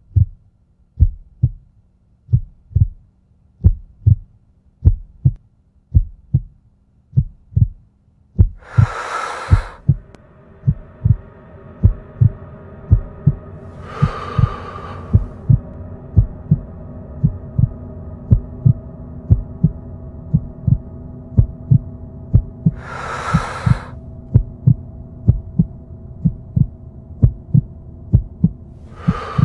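Heartbeat sound effect, a slow double thump that quickens about a third of the way in. From then on a steady drone runs under it, and four rushing whooshes come at intervals.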